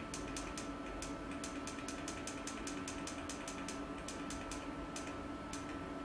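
Quick, light clicks in irregular runs of several a second, from the slide controls as the presentation is skipped forward several slides, over a steady electrical hum in the room.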